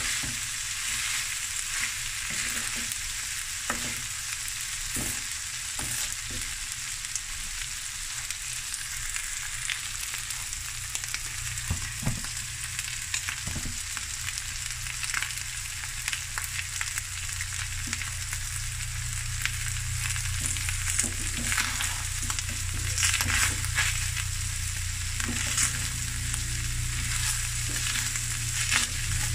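Rice and sausage sizzling as they stir-fry in a wok, with a wooden spoon scraping and knocking against the pan as it tosses the rice. A steady frying hiss with frequent short clicks from the spoon.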